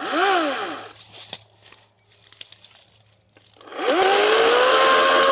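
EGO Power+ CS1401 56-volt cordless chainsaw: a short whirr as the motor spins up and straight back down, a few small clicks, then about four seconds in the motor spins up to speed and runs steadily with a high whine.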